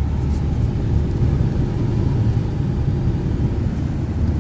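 Car running, a steady low rumble of engine and road noise heard from inside the cabin.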